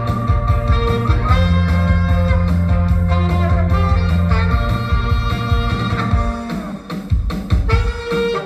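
Saxophone playing a Korean pop tune over a backing track with guitar and a steady beat; the low bass part drops away about six seconds in.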